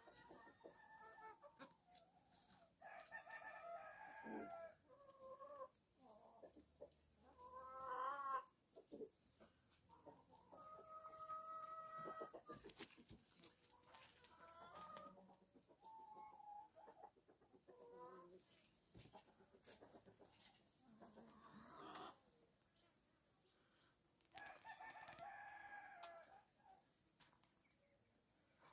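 Domestic chickens calling, faint: a string of clucks and crowing calls, several seconds apart, including one longer held call about eleven seconds in.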